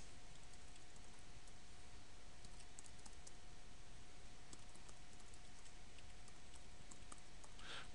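Light, scattered computer keyboard keystrokes over a steady faint hiss.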